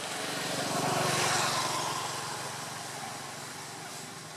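A motor vehicle's engine passing by. The engine and road noise swell to a peak about a second in and then fade away.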